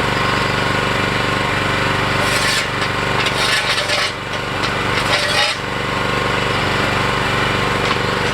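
Small engine of a mini excavator running steadily, with a stretch of harsh rattling and scraping noise over a few seconds in the middle.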